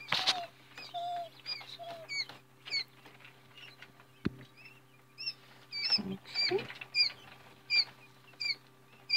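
Newly hatched quail chicks peeping: a string of short, high peeps about once a second, with a few lower calls early on. Rustling of handling the basket near the start and a single sharp click about four seconds in.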